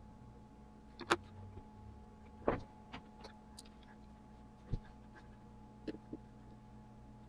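About eight irregular light clicks and knocks, the loudest about a second in and two and a half seconds in, over a faint steady hum.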